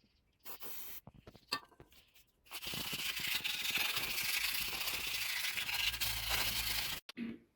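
Abrasive scraping on steel: a few short scrapes and clicks, then one continuous scrape of about four seconds that cuts off suddenly.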